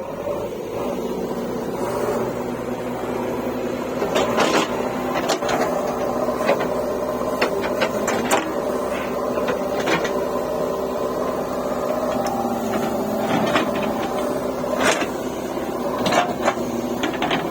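Backhoe loader's diesel engine running steadily, with sharp clanks and knocks every second or two.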